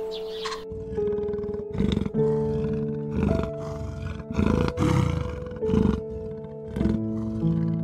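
Leopard giving a run of short calls, one every half second to a second, beginning about two seconds in, over steady instrumental background music.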